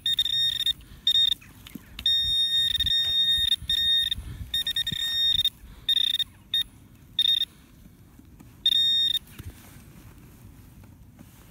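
Handheld metal-detecting pinpointer sounding as it is probed through a loosened plug of soil: a high beeping tone that comes in uneven bursts, some short pips and some held for a second or more, showing metal close to its tip. The beeping stops about nine seconds in, with soft scraping of soil underneath.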